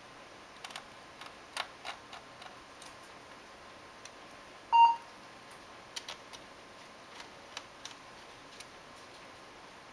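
Light scattered clicks of small screws and a precision screwdriver as the bottom-case screws go back into a laptop, with one short, loud electronic beep about five seconds in.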